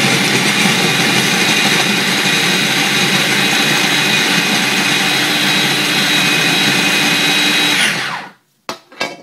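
Small food processor's motor running steadily, its blade chopping banana and nuts into a thick paste. Near the end it winds down and stops, followed by two short clicks.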